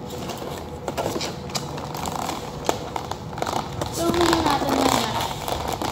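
Thin clear plastic cake container crackling and clicking as it is handled, with a brief voice about four seconds in.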